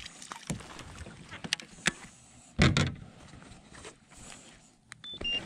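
Hooked bass splashing at the surface beside a small boat as it is landed, with scattered knocks and clicks and one loud thud about two and a half seconds in. Two short beeps near the end.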